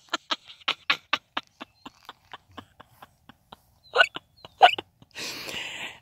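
A woman laughing: a quick run of short breathy "ha" pulses that slows and fades away. Two louder short sounds follow about four seconds in, then a soft breathy rustle near the end.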